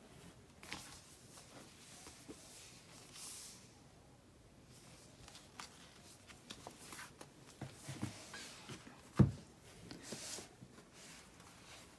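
Heavy glossy magazines being handled and laid down on a table: soft paper swishes and slides, with one sharp knock late on as a magazine is set down.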